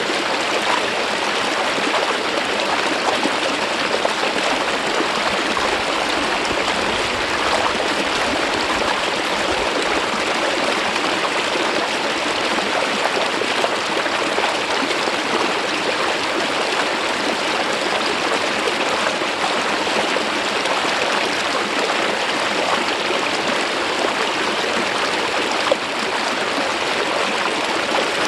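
Mountain stream water flowing smoothly over a rock face, a steady, even rush with a light trickle.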